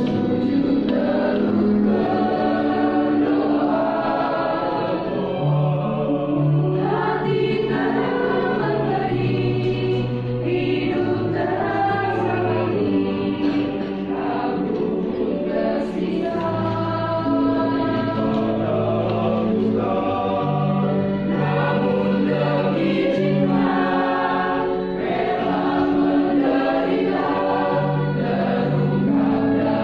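Church youth choir singing a hymn in several voice parts, with long held notes.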